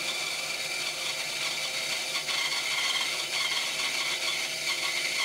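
Rikon 10-305 benchtop bandsaw running a 3/16-inch, 4 TPI skip-tooth blade, cutting steadily through a thick wooden blank: an even sawing hiss with a steady high whine.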